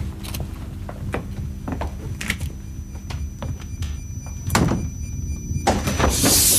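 Door being opened and people moving through it, a scatter of knocks and footsteps with a heavier thud about four and a half seconds in. A short burst of hiss comes near the end, over a low steady hum.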